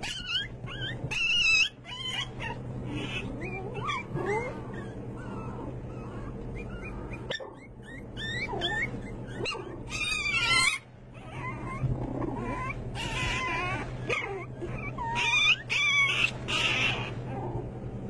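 A litter of young puppies whining and yipping in short, high-pitched, wavering calls, several overlapping, over a steady low hum.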